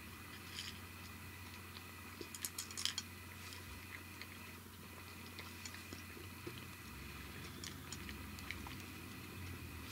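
Tabby cat crunching dry kibble from a bowl: faint, irregular crunches, with a short flurry of louder crunches about two and a half seconds in.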